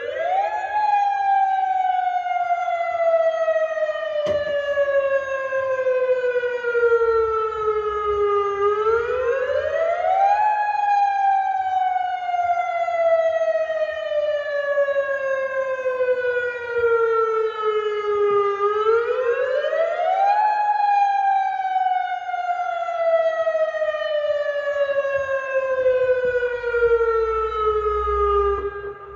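Civil defence warning siren wailing, three cycles in which the pitch sweeps up quickly and then falls slowly over about eight seconds. It signals the start of a curfew ordering everyone to stay indoors.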